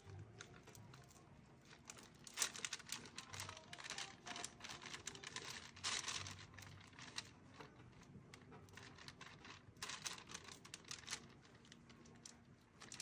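A small sponge dabbing paint onto a silicone doll's skin: runs of quick, light taps and soft crackles, each run lasting a second or two, with pauses between.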